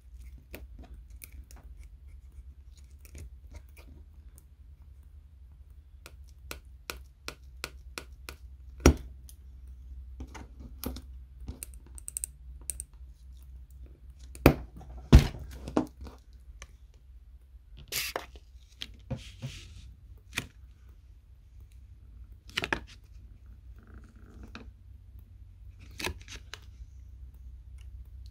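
Small clicks, taps and snaps of tools and fingers on the metal brackets and parts inside an iPhone 13 being taken apart, with a few short scrapes; the loudest sharp clicks come about nine seconds in and twice near the middle.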